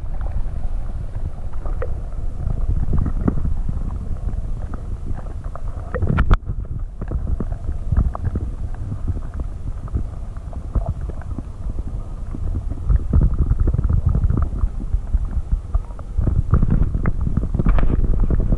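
Muffled low rumbling and gurgling of water moving around a submerged GoPro, with scattered small knocks and one sharper knock about six seconds in.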